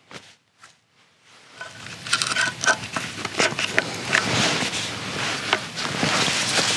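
Hobart 140 MIG welder building up weld on a gouged steel shear blade edge: a few faint clicks, then about a second and a half in a steady, loud crackling sizzle of the welding arc sets in.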